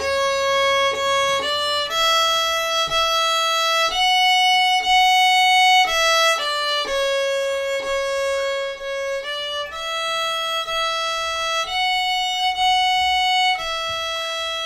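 Solo violin bowing a slow folk melody one note at a time, stepping up and back down: C sharp, D, E, E, F sharp, E, D. It plays this loud (forte) first, then repeats it nearly the same but softer (piano), ending on a long held E.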